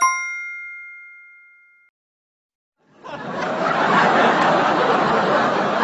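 A single bright bell-like ding that rings out and fades away over about two seconds. After a short silence, a steady noise of a crowd chattering and laughing starts about three seconds in and carries on.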